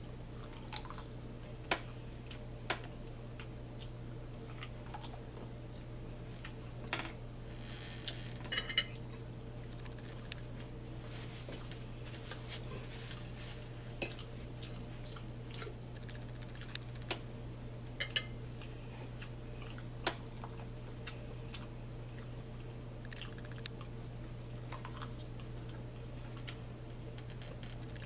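Eating at a table: a fork clicks now and then against a plate, with chewing sounds between. A steady low hum runs underneath.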